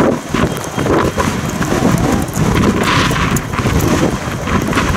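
Steam locomotive working with irregular low exhaust beats, mixed with wind buffeting the microphone in a snowstorm.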